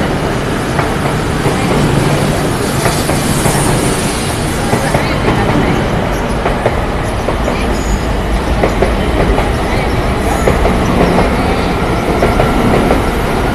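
E6 and E5 series Shinkansen, coupled as one 17-car train, pulling out of a station: steady rolling and running noise from the passing cars, with wheels clicking over rail joints again and again.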